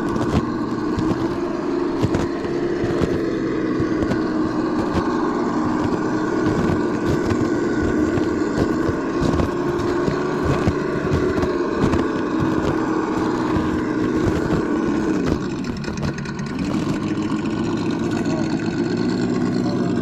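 Simulated engine sound from an RC crawler's Sense Dual ESS sound kit, played through its onboard speaker, held at a steady revved pitch under throttle. About fifteen seconds in it drops back toward idle, then rises again a second or so later. Scattered light clicks and knocks run through it.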